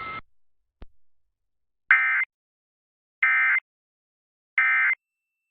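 Emergency Alert System end-of-message (EOM) code: three short bursts of screechy SAME digital data tones, each under half a second and spaced a little over a second apart, signalling the end of the alert.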